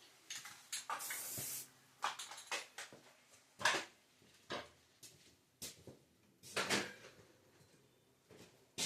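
Intermittent clicks, knocks and short scraping noises, spaced a second or so apart, with a brief hiss-like rush about a second in: objects being handled.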